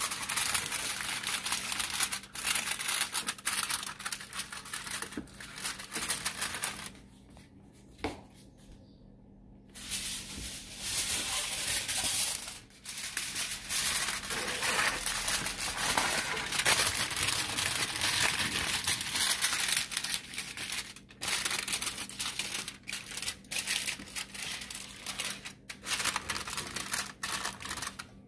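Aluminium foil crinkling and crumpling as hands press and fold it over the rims of flan moulds, with a lull of about three seconds roughly a quarter of the way in.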